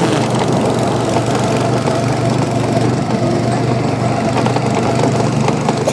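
Go-kart's small petrol engine running at a steady speed, heard from the seat of the moving kart: an even drone with no revving up or down.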